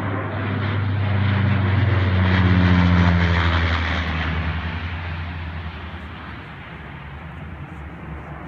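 Twin-engine amphibious water bomber flying low overhead on its way back from a water pickup. Its engines and propellers get louder to a peak about three seconds in, then fade as it passes, dropping slightly in pitch.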